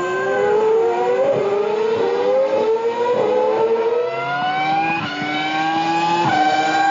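Formula 1 car engine sound effect: a high-revving racing engine climbing in pitch, with several sudden steps as it changes gear.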